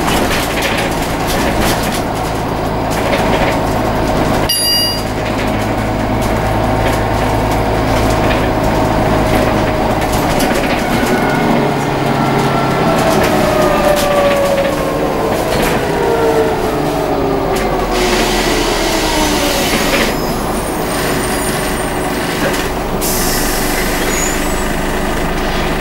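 Scania N94UA OmniCity bus heard from inside the saloon, its engine and driveline running steadily under way. From about the middle onward a whine glides down in pitch over several seconds, and there is one sharp click about four and a half seconds in.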